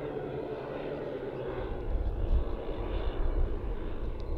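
The twelve 10 cc OS model engines of a 1:10 scale Dornier Do X flying-boat model running together in flight, a steady multi-engine drone. A low rumble joins about halfway through.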